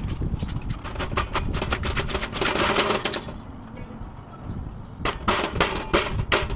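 An RV water heater being pulled out of its opening in a trailer's side wall: rapid crackles, scrapes and knocks as the tank and its flange, lined with old sealant, work loose from the wall. The noise eases about three seconds in, then sharp clicks and knocks start again about five seconds in.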